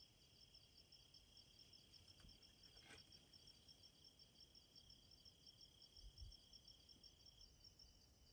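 Faint insect calls in near silence: a rapid, evenly pulsing high chirp, with a steady high whine that stops near the end. A faint click sounds about three seconds in.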